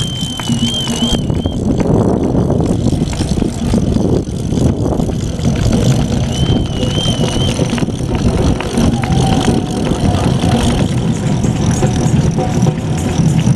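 Loud, rumbling outdoor street noise, with a wavering high whistle heard twice, each about a second long.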